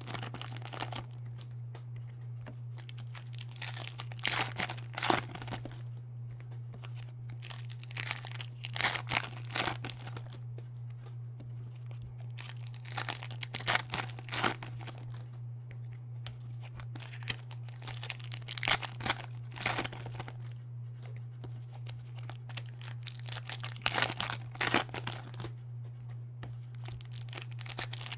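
Foil wrappers of Panini Prizm basketball card packs being torn open and crinkled, one pack after another, in crackly bursts every few seconds. A steady low hum runs underneath.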